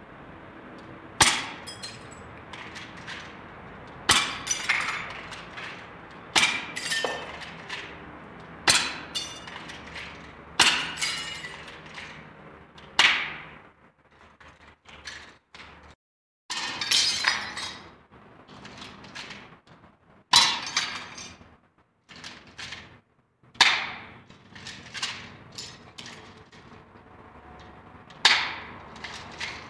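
A toy pistol fired repeatedly at chunks of brick and plaster: sharp cracks about every two to three seconds, each with a short ringing tail, and smaller clinks of chips between them.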